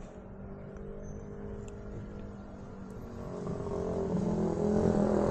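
A vehicle engine running steadily, growing louder in the last couple of seconds.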